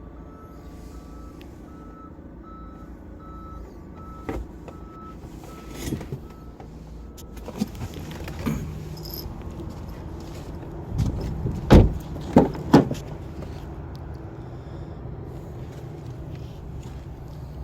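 A car's electronic warning chime beeping steadily in a repeating two-note pattern for the first several seconds, then a series of knocks and thumps, the three loudest coming close together just past the middle.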